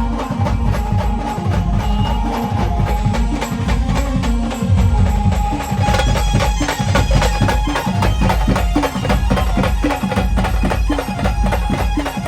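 Band playing fast instrumental dance music: a dense, driving drum beat with heavy bass under a held melody line. The percussion gets busier, with more cymbal, about six seconds in.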